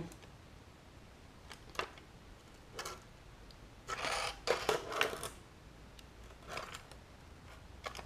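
Light knocks and scrapes of a plastic power strip being pressed and turned over on a concrete floor. A few single clicks come early, and a short cluster of scraping and knocking about four to five seconds in.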